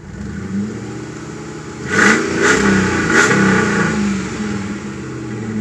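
Jeep Grand Cherokee WJ engine running after a top-end rebuild, revved in three short blips about two to three seconds in, then settling back to a steady idle.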